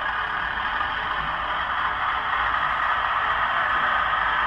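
Diesel railcar engine sound played by an ESU LokSound V4 sound decoder through the small speaker of an OO gauge Class 121 model: a steady, hissy engine note that grows slightly louder.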